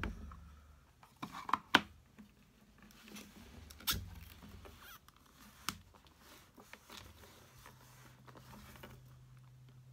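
Papercraft handling: scattered sharp clicks and taps as an ink pad is dabbed onto clear stamps and the hinged lid of a stamp positioning tool is closed and pressed down. A faint low hum starts near the end.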